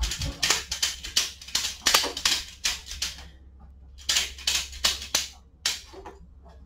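Ratchet tie-down strap being cranked tight in quick strokes, each a burst of clicks, about three a second, with a pause of about a second midway before a few more strokes. The strap is being tensioned to hold a motorcycle steady on its lift jack.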